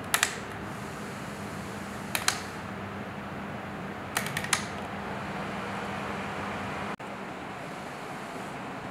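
Clicks from the detents of a mini tower fan's rotary control knob as it is turned, in three quick groups about two seconds apart, over the steady whir of the fan running.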